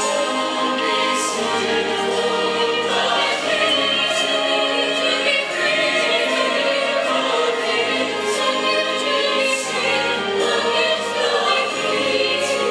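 High school show choir singing in harmony over instrumental accompaniment, with held bass notes underneath.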